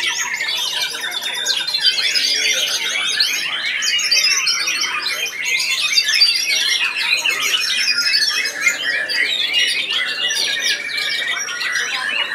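White-rumped shamas (murai batu) singing at once, a dense, unbroken tangle of rapid whistles, trills and harsh chattering notes.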